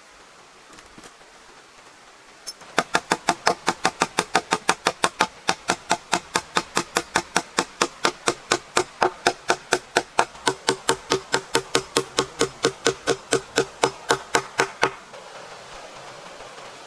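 A hammer striking rapidly and evenly, about four blows a second, each blow ringing with a metallic tone; the hammering starts about three seconds in and stops abruptly near the end.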